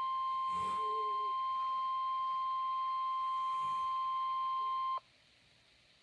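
NOAA Weather Radio warning alarm tone, a single steady high beep near 1050 Hz, played through a Midland weather radio's speaker. It cuts off sharply about five seconds in. The tone signals a warning alert, here a winter storm warning.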